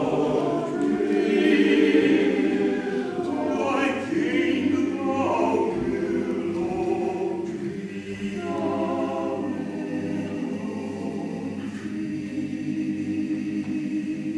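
Mixed choir of men and women singing in harmony, the phrase settling onto a long held chord in the last couple of seconds.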